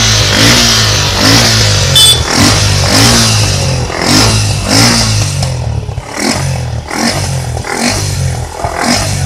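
Suzuki Gixxer motorcycle's single-cylinder engine revved in quick repeated throttle blips, about two a second.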